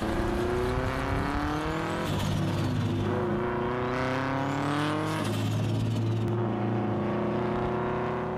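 A car engine accelerating hard through the gears: its pitch climbs, drops at an upshift about two seconds in and again about five seconds in, then holds steady.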